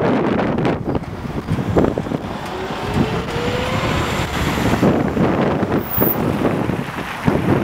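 Road traffic at a city intersection: cars and a city bus driving past close by, a steady rumble of engines and tyres. A short rising whine comes about two and a half seconds in.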